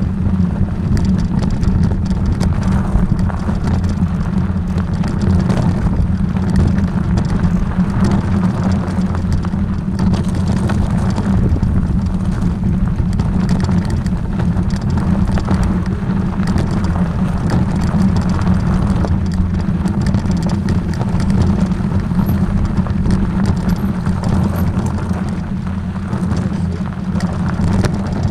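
Motor vehicle running steadily on the move, a constant low engine drone with road noise and many small knocks and rattles.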